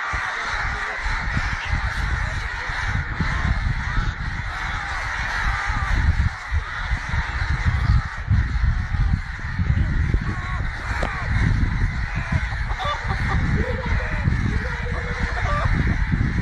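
Many birds calling at once in a dense, continuous chatter, over a low uneven rumble.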